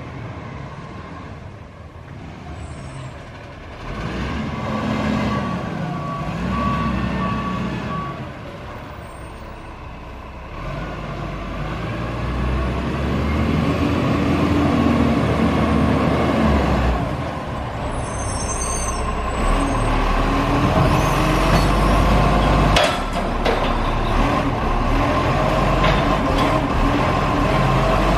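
Garbage truck's diesel engine running and growing louder as it works closer, with short hisses from its air brakes. A steady high beeping tone sounds through it.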